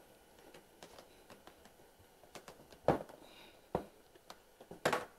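Vinyl wrap film being handled and pressed down by hand on a snowmobile's metal tunnel: faint rubbing with a few sharp clicks and taps. The loudest click comes about three seconds in and another near the end.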